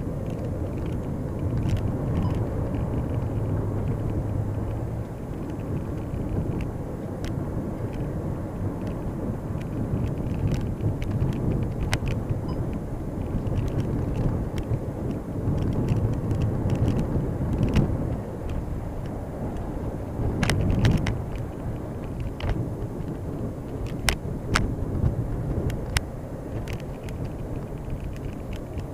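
Cabin noise of a moving 2011 VW Touran 1.2 TSI heard from inside the car: a steady low rumble of tyres, road and engine, with scattered sharp clicks and knocks, more of them in the second half.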